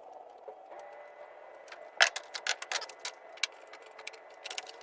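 Scattered sharp clicks and taps of hard objects being handled, the loudest about two seconds in, over a faint steady hum.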